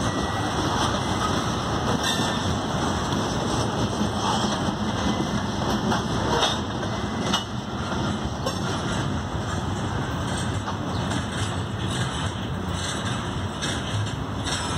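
Freight train of container cars rolling along the rails: a steady wheel noise with scattered faint clicks.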